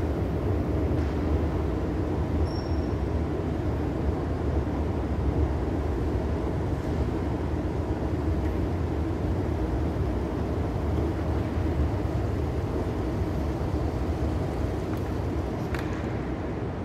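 Steady low mechanical rumble with a hum, from escalator machinery running in an underground concourse.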